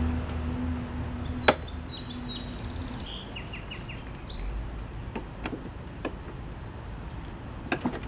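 Cutting-height adjuster levers on a Toro Personal Pace walk-behind mower being worked by hand: one sharp click about a second and a half in, then a few lighter clicks later. A low hum fades away in the first two seconds, and birds chirp briefly.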